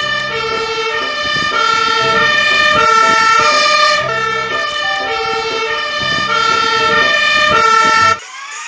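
Toy fire ladder truck's battery-powered electronic siren sounding: a loud, buzzy tone that alternates between pitches several times a second. It cuts off suddenly near the end, and a rising sweep follows.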